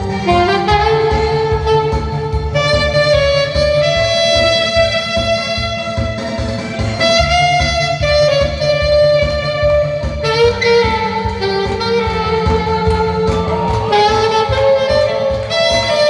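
Saxophone playing a sustained melody line over accompaniment with a steady beat and a stepping bass line.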